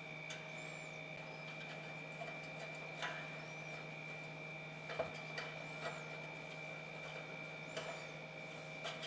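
A steady hum with light clicks and taps scattered through it, about seven in all, the sharpest about five seconds in.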